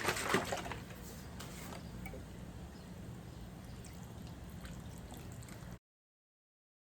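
Pasta in meat sauce bubbling faintly in a pot as it comes to a boil, with scattered small pops over a steady low hum; the sound cuts off abruptly near the end.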